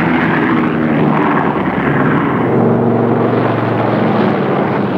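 North American AJ Savage's piston engines and propellers running steadily and loudly as the aircraft flies low, with a steady engine hum under a broad rushing noise.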